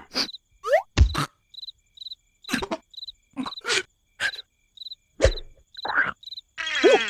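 Cartoon soundtrack with regular cricket chirps, short and high, about every half second, mixed with sharp clicks, knocks and short comic sound-effect glides.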